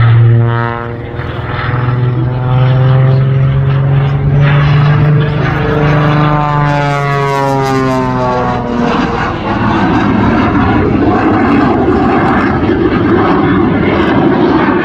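Jet Waco biplane flying overhead on its Pratt & Whitney 985 radial engine and General Electric CJ610 jet engine. A steady, humming propeller drone sweeps in pitch as the plane manoeuvres. About nine seconds in, a broad rushing roar takes over as the plane climbs straight up.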